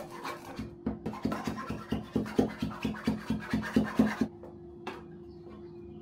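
Gritty silicon carbide and sand mold mix, bound with sodium silicate, being mixed by hand: rhythmic scratching strokes about five a second, stopping about four seconds in.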